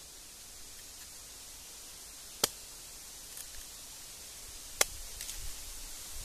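Hatchet blade chopping into a block of wood: three sharp cracks about two and a half seconds apart, with faint taps and creaks in between.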